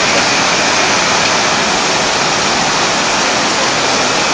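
Steady rush of fast-flowing muddy floodwater surging down a street around submerged cars.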